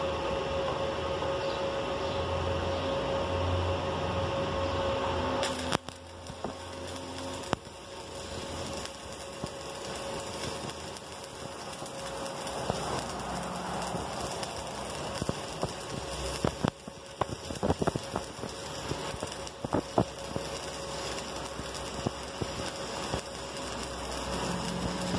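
Stick-welding arc from a 3/32-inch electrode on steel plate, crackling and sizzling unevenly with sharp spatter pops as a weaving bead is laid. It follows about five seconds of a steady hum, and the crackle starts abruptly after that.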